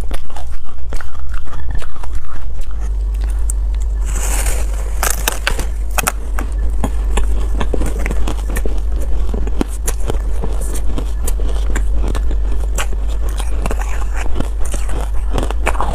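Ice being bitten and chewed close to the microphone: shaved ice, then a block of matcha-dusted foam ice, giving a dense run of crunching and crackling clicks, with a louder crackly bite about four seconds in.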